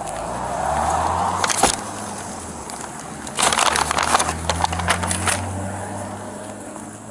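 Brown paper evidence envelope crinkling and rustling as it is handled, in a short burst about a second and a half in and a longer spell of crackling in the middle, over a low steady hum.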